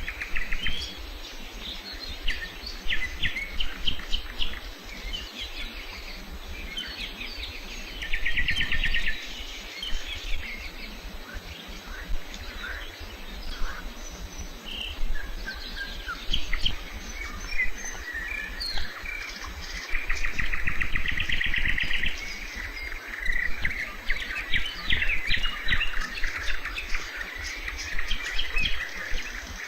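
Wild songbirds singing and calling outdoors: many short chirps and whistled notes, with a few fast trills of rapidly repeated notes.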